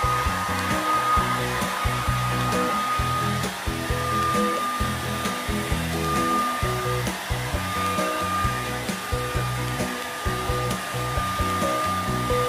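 Handheld hair dryer blowing steadily, with a high, even whine over its airflow, while music with a stepping bass line plays.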